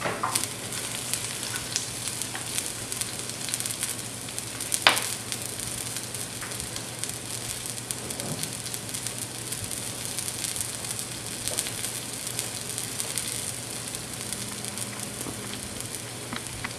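Chopped onion sizzling in olive oil in a pan: a steady frying hiss with small crackles. About five seconds in there is one sharp click.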